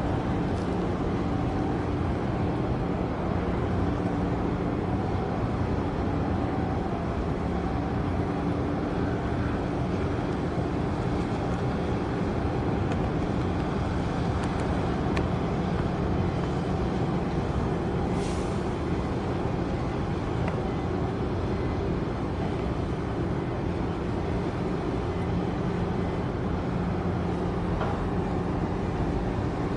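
Steady low engine drone from a passing container ship, with several held hum tones over a rumble.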